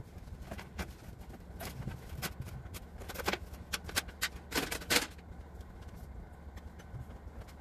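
Rusty metal grille of a 1972 Ford Econoline van clanking and rattling as it is pulled free and set down, a run of sharp knocks that is loudest a little past halfway.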